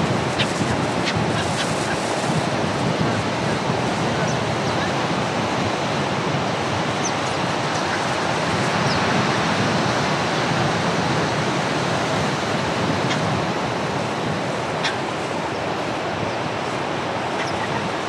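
Stormy surf breaking steadily on a sandy beach, with strong wind buffeting the microphone. Short high calls of gulls come through now and then.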